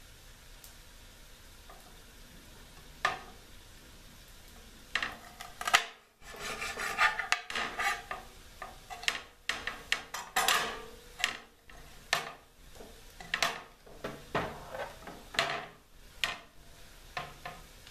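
Kitchen knife slicing a green bell pepper on a glass cutting board: one knock of the blade a few seconds in, then from about five seconds a run of irregular sharp clicks and scrapes as the blade strikes and drags across the glass.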